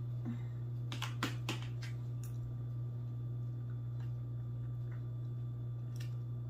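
A fork cutting through a stack of pancakes, clicking sharply against the plate three times about a second in and once more near the end, over a steady low hum.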